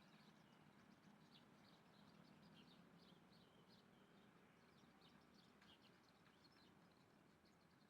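Small birds chirping and trilling faintly, many short high calls overlapping, over a faint steady low hum.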